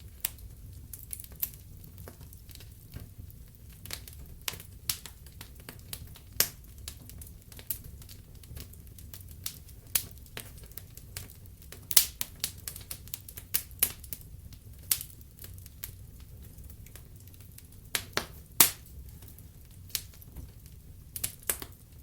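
Wood fire crackling in a fireplace: irregular sharp pops and snaps over a steady low hiss of the flames, with the loudest pops about twelve seconds in and again near nineteen seconds.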